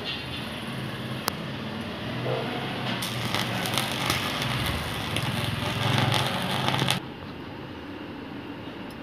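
Electric welding arc crackling as a homemade mains-powered welder, with a bottle of salt water as its current limiter, runs a bead on a piece of iron. The crackling cuts off suddenly about seven seconds in.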